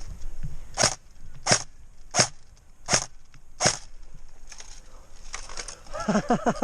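Footsteps crunching on rough ground at a walking pace, five sharp steps about two-thirds of a second apart, followed by a brief voice near the end.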